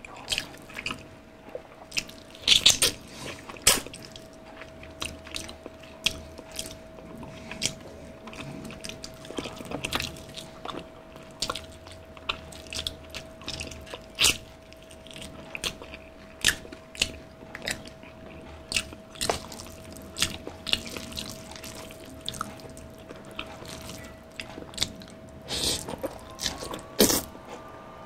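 Eating sounds: crunchy bites into the crisp crust of Jollibee spicy Chickenjoy fried chicken and wet chewing, with many sharp, irregular crackles and smacks.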